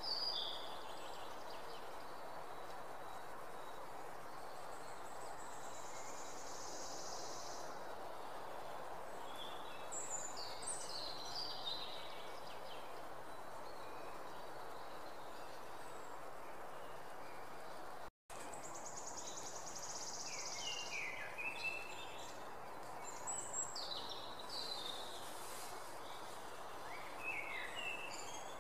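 Outdoor ambience: birds chirping and trilling at intervals over a steady background hiss. The sound cuts out completely for a moment about two-thirds of the way through.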